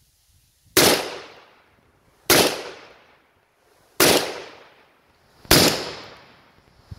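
Four shots from a 12-gauge M4 shotgun with a 14-inch short barrel, firing Federal low-recoil Flight Control buckshot. The shots come about a second and a half apart, and each one echoes and dies away before the next.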